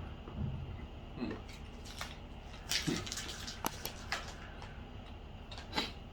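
Faint eating and dish-handling sounds: a few scattered clicks and soft knocks, some with a dull low thump.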